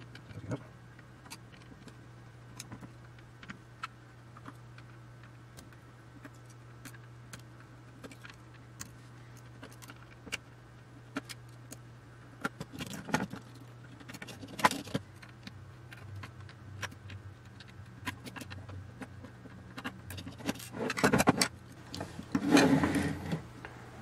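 Hands handling the aluminium panel and wiring loom of a dismantled electronics box: scattered small clicks, taps and metallic jingles, with a few louder clattering rustles about halfway through and near the end, over a steady low hum.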